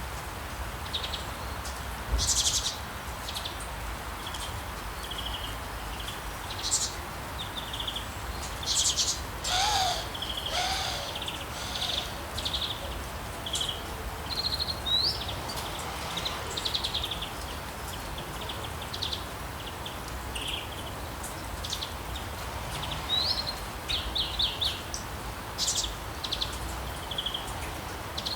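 Songbirds chirping and singing in short repeated high calls and trills over a steady hiss of rain in a town, with a louder call about ten seconds in.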